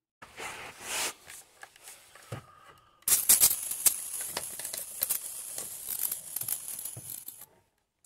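Leak-detector bubble solution being sprayed onto a car's air-conditioning condenser to look for a refrigerant leak: rustling and handling noises first, then a steady spray hiss with a few clicks from about three seconds in, cutting off shortly before the end.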